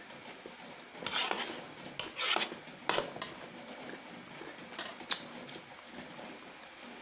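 Close-up eating sounds: wheat noodles slurped up in a few loud, noisy sucks in the first half, with short sharp clicks of a fork against the plate after them.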